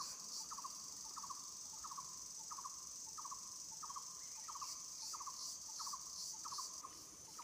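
Steady high-pitched drone of insects, with a short pulsed call repeated evenly, about three times every two seconds.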